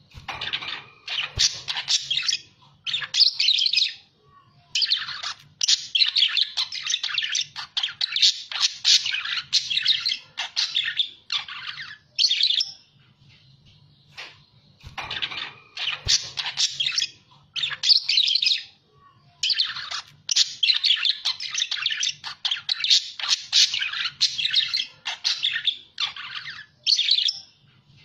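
Budgerigars chattering and warbling in fast, busy runs of chirps and squawks, played as a lure or tutor recording. About 13 seconds of chatter, a short pause, and then the same stretch repeats as a loop.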